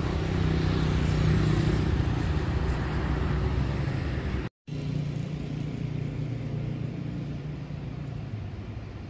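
Steady city road traffic with an engine hum underneath. The sound cuts out completely for a moment about halfway through, then the traffic noise resumes.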